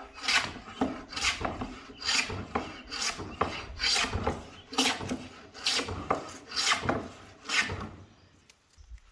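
A hand tool scraping over wood in repeated strokes, about ten of them at roughly one a second, stopping near the end.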